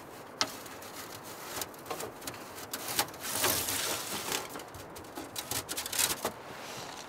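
Thin sheet-metal stove chimney pipe being handled and fitted together: rubbing and scraping of the metal with a few sharp clicks, and a longer rustling scrape about three seconds in.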